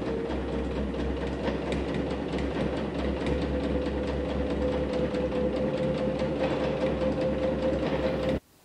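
Bernina sewing machine running steadily, stitching through a fused two-layer cork-fabric strip with a triple stitch: a fast, even run of needle ticks over a steady motor hum. It stops abruptly shortly before the end.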